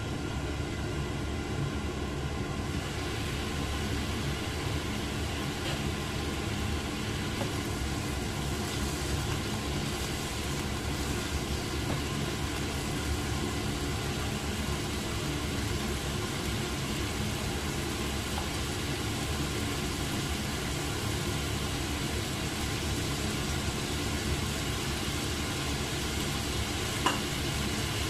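Meat sizzling and simmering in sauce in a frying pan, over a steady low rumble. A single sharp click comes near the end.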